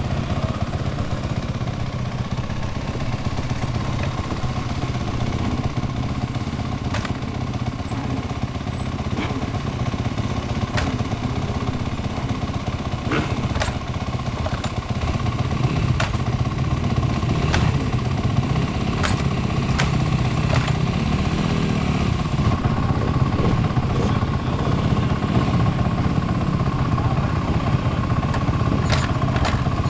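Dirt bike engine running at idle, a steady low drone that runs a little harder from about halfway through, with scattered sharp clicks.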